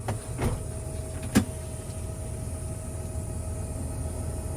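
Tractor engine running steadily, a low rumble with a steady whine over it, and two short knocks, about half a second and a second and a half in.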